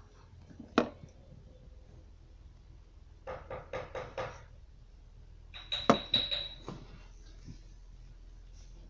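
Plastic Play-Doh tools tapping and knocking against a table: a single sharp click about a second in, a quick run of about six taps a little after three seconds, then a louder knock with a short high squeak near six seconds and a few lighter taps after it.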